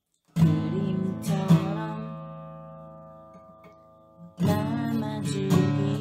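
Steel-string acoustic guitar strummed: a chord about half a second in and another a second later that is left to ring, fading out slowly for about three seconds before strumming starts again near the end.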